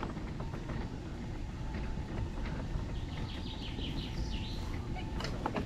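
Electric wheelchair driving along a dirt path: a steady low rumble from the wheels with a faint steady motor whine. A bird sings a short run of quick high chirps about three seconds in.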